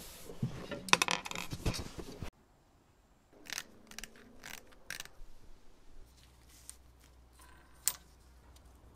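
Workshop handling sounds: red steel tricycle frame parts clatter and rattle as they are fitted together. After a sudden cut, a paint scraper chips old paint off metal in sharp strokes about two a second. Near the end comes a single faint click of a metal part.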